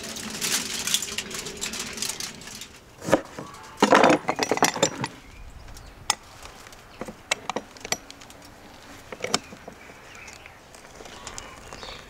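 Handling sounds at a wooden table: a cluster of loud knocks and clatter about four seconds in, then sparse sharp metallic clicks as a metal hand-lever citrus squeezer is worked to press limes.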